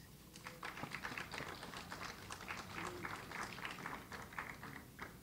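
Faint, light applause from a small group, many irregular hand claps that thin out near the end.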